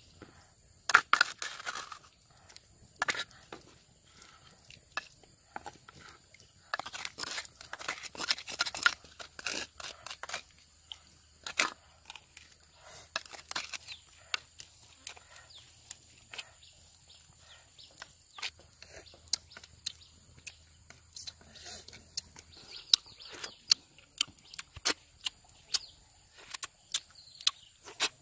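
Irregular clicks and short scrapes of snail shells and a wooden spoon knocking against a coconut-shell bowl as cooked snails are handled, with eating and mouth sounds in between.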